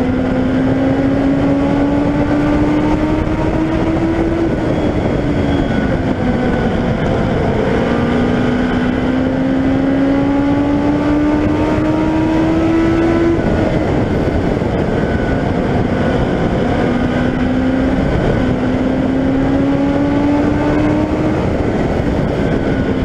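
Legend race car's Yamaha four-cylinder motorcycle engine heard from on board at racing speed, under a heavy rush of wind and road noise. Its pitch climbs along each straight and drops off into the turns, three times.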